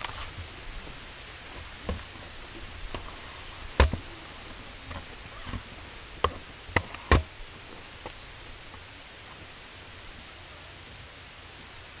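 A few sharp knocks over a steady hiss: one about two seconds in, the loudest nearly four seconds in, and three in quick succession between six and seven seconds in.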